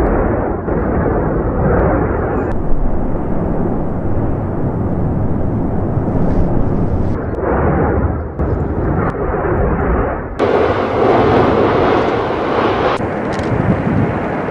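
Erupting volcano: a loud, continuous deep rumble with rough blasting noise, its tone changing abruptly several times.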